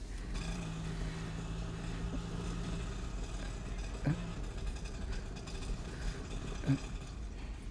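Road traffic: a steady low rumble of vehicles running past, with a brief steady engine hum in the first few seconds and two short, sharper sounds later on.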